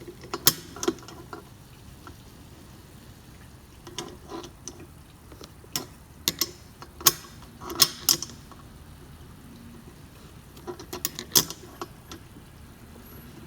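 Wrenches clicking and clinking against the nut on the garage door opener's rail pulley as it is tightened. The clicks come in irregular bunches.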